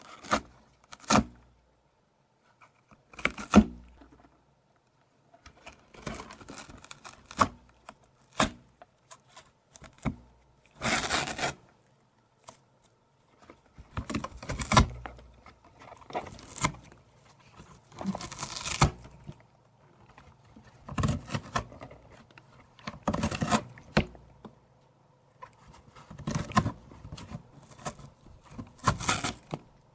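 A cat biting into corrugated cardboard and ripping pieces off with its teeth: repeated bouts of crunching and tearing, each a second or so long, with short pauses between.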